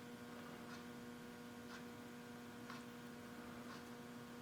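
Faint steady electrical hum with soft ticks about once a second.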